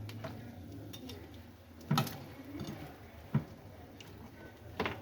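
Kitchen clatter: three sharp knocks of cookware or utensils being handled, about a second and a half apart, over a low steady hum.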